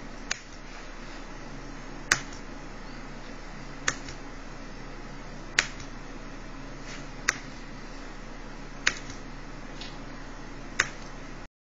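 Seven sharp clicks, about one every 1.7 seconds, as a computer web page is refreshed over and over, over a steady low hum. The sound cuts off suddenly just before the end.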